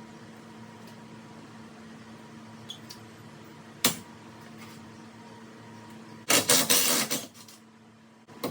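Aerosol can of PB Blaster penetrating oil spraying onto rusted T40 bolts in loud hissing bursts, a group of short sprays a little after halfway and another starting near the end. Before that, one sharp knock over a steady faint hum.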